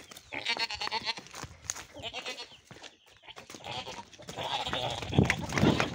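Goats bleating in quavering calls, twice in the first half, then louder scuffling with sharp knocks near the end.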